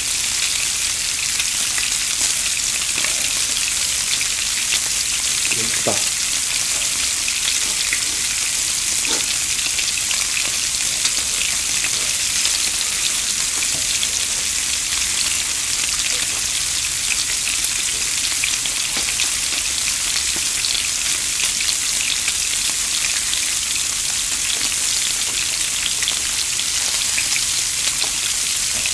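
Slices of pork belly sizzling steadily on a hot grill plate, a constant frying hiss with fine crackles of fat.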